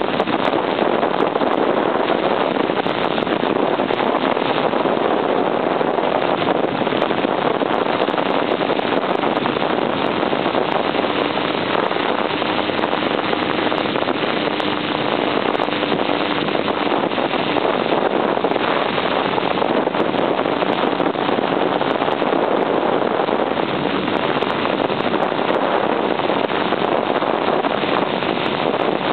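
Steady rush of wind on the microphone of a moving motorcycle, with the 1978 Honda CB750's air-cooled inline-four engine running underneath at a cruising pace.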